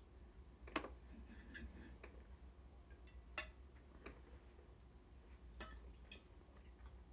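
Near silence over a steady low hum, broken by about five light, sharp clicks, the loudest about a second in.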